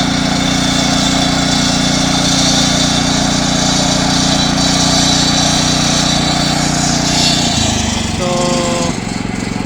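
Walk-behind concrete saw, its small petrol engine running steadily while the blade cuts a construction joint into a concrete floor slab poured about a day earlier, the timely saw-cut that keeps shrinkage cracks to the joint line. Near the end the engine note drops and changes.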